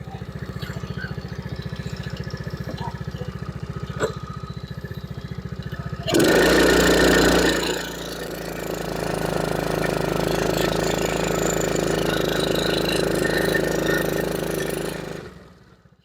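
Tao-Tao 100cc mini ATV's small four-stroke engine idling with a steady beat, then about six seconds in it runs much harder and louder, until it dies away near the end. The engine is running again after a clogged carburetor jet was cleared.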